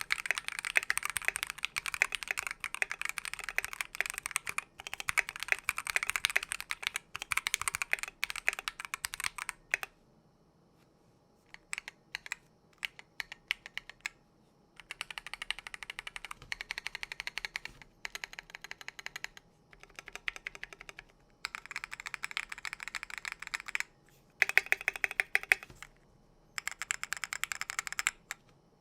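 Typing on a mechanical keyboard with a brass plate and lubed linear switches (NovelKeys Silk Yellows) under AKKO keycaps: fast runs of keystrokes, a few seconds of scattered single presses near the middle, then more bursts of typing.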